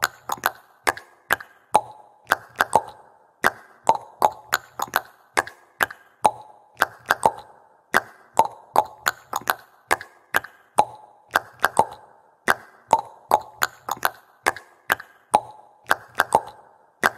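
Sparse percussive beat: sharp clicks and knocks in an uneven repeating pattern, a few a second, over short low bass pulses.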